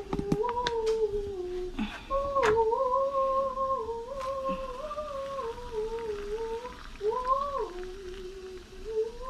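A person humming a tune loudly in a high voice, hopping between a few notes with short breaks, with a few light knocks near the start.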